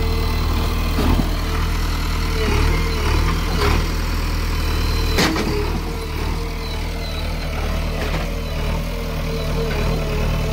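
JCB 3DX backhoe loader's diesel engine running steadily, with a steady whine over it and a few short knocks or clanks.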